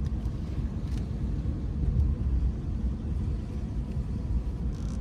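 Steady low rumble of a Subaru Baja heard from inside the cabin while driving: engine and road noise.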